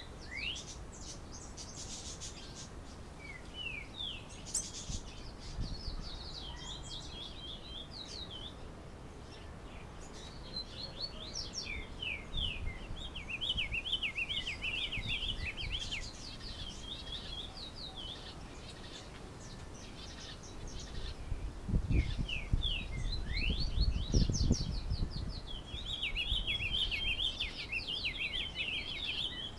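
Diademed tanager (sanhaço-frade) singing its fast 'galopeado' song: phrases of quick, high downslurred notes lasting a few seconds, with pauses between. A low rumble comes in about three-quarters of the way through.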